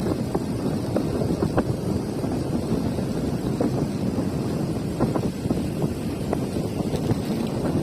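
Wind buffeting the microphone of a camera riding along on a moving bicycle, a steady rushing rumble, with scattered small knocks from the road.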